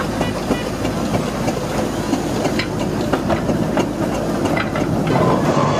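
Steam engine running with a steady hiss, and a run of sharp clicks and knocks in the middle and near the end.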